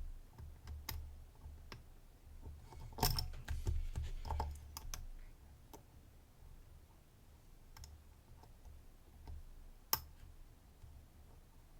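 Lock picks clicking and scraping in the keyway of a DOM IX-HT dimple lock as its pins are picked one at a time under tension: scattered small clicks, a dense run of them about three to five seconds in, and one sharp click near ten seconds.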